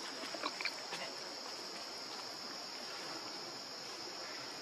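Steady high-pitched drone of forest insects, with a few short squeaks in the first second.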